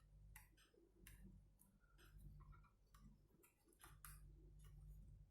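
Near silence with faint, scattered small clicks and taps: a laptop's plastic parts being handled while a flat cable is pushed into its connector.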